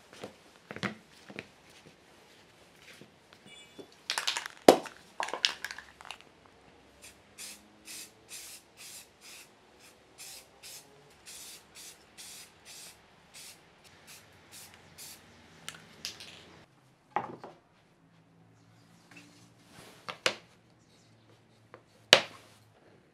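Aerosol spray-paint can sprayed in a run of short hissing bursts, about two a second, coating wooden rings black. Sharp knocks of wooden pieces set down on a workbench come before and after, the loudest a few seconds in.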